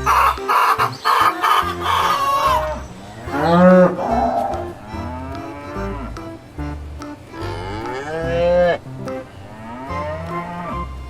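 Cow mooing: several long calls that rise and fall in pitch, beginning about three seconds in, just after a chicken's clucking trails off.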